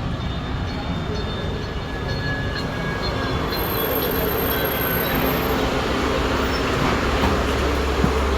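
Foton C10 electric bus pulling in: a broad rumble and hiss of the moving bus that grows louder, with a few thin high tones coming and going, and a deep low rumble building near the end.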